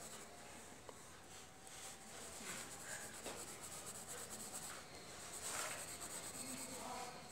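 Graphite pencil scratching on drawing paper in faint, irregular back-and-forth strokes, hatching in a dark background.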